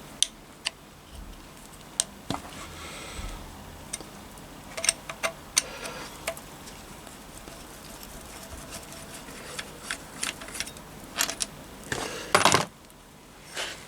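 Small metal gearbox parts from a Triumph Bonneville T140 clicking and clinking as they are handled and taken off, with a louder rattle of metal on metal about twelve seconds in.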